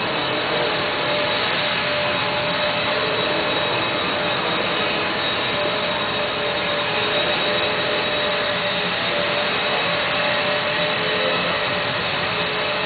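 Electric motor and propeller of a Parkzone Cessna RC model plane whining steadily in flight at reduced throttle, its pitch shifting slightly a few times.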